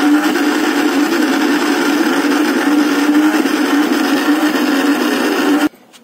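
Electric mixer-grinder running steadily with a hum, grinding garlic, ginger and whole spices into a wet paste, then switched off abruptly near the end.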